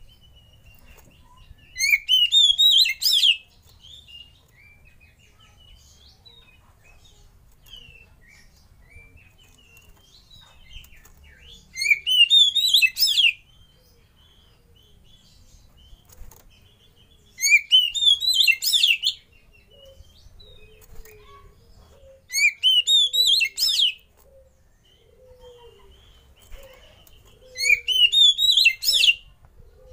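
Caged oriental magpie-robin (kacer) singing: five loud bursts of fast, rising notes, each about a second and a half long, several seconds apart, with faint chirps in between.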